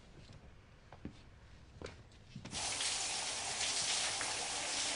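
Water running steadily from a shower, a hiss that starts suddenly about halfway through, after a quiet stretch with a few faint knocks.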